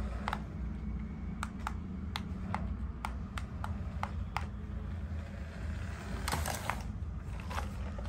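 Sharp, irregular clicks of a toy RC car's steering-and-pedal controller being worked while the car is driven back and forth, a few a second with a denser cluster about six seconds in, over a low steady hum.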